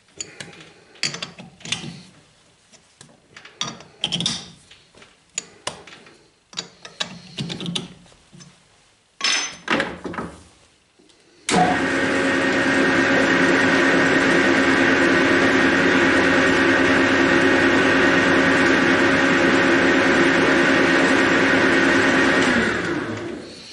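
Metal lathe with a four-jaw chuck: first scattered metallic clicks and knocks as the chuck key adjusts the jaws. About halfway in, the lathe starts suddenly and runs at a steady speed with a hum and several steady tones, then is switched off near the end and spins down.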